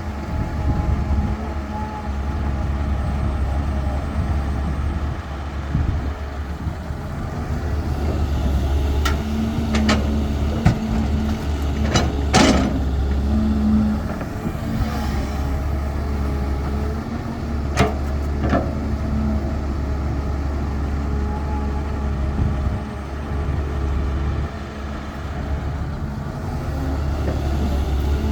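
Caterpillar 320 hydraulic excavator working, its diesel engine running steadily under load. A handful of sharp clanks and knocks come through it, the loudest near the middle.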